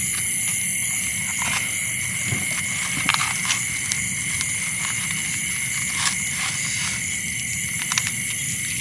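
Steady, shrill chorus of night insects, several high tones at once, with a few light scattered clicks.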